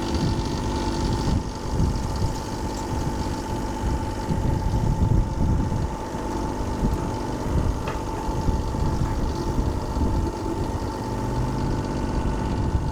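Compact LS diesel tractor engine running steadily under light work, with a constant mid-pitched whine over the low engine rumble.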